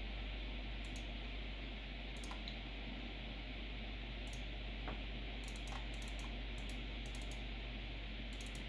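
Scattered clicks, single and in quick runs, from someone working a computer's keyboard and mouse, over the steady whir and hum of the running PC.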